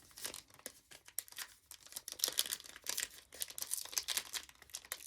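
Plastic wrapper of a trading-card pack crinkling and tearing as it is worked open by hand, a rapid, irregular run of crackles and rips. It is a stubborn pack that does not open easily.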